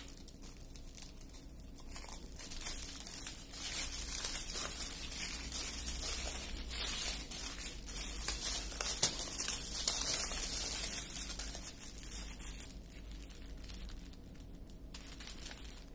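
Small plastic bags of diamond painting drills crinkling as they are picked up, handled and stacked. The rustling is louder through the middle and quieter near the end.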